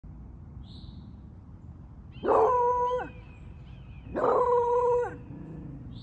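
A dog howling twice, two held notes just under a second each, about two seconds apart, with faint short high chirps before and after.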